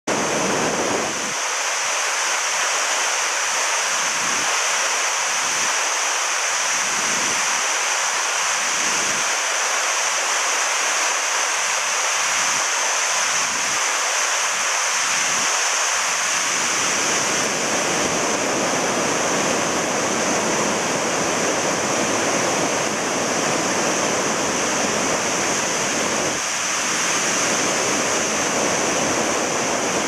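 Mountain stream rapids: white water rushing steadily over and between moss-covered boulders.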